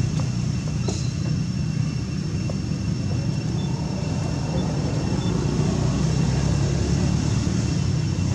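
A steady low rumble with no break, with faint high steady tones above it.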